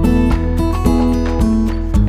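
Background music led by a strummed acoustic guitar with a steady beat.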